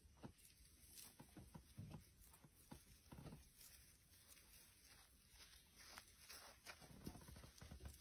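Near silence: faint outdoor quiet with scattered soft taps and a few low thumps.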